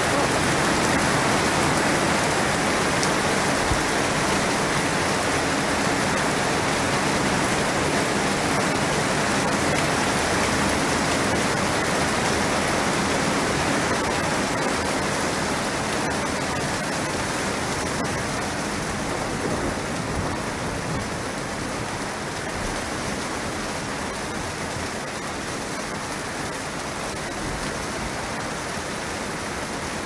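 Heavy rain falling as a steady, even hiss with no distinct thunderclaps, growing gradually quieter over the second half.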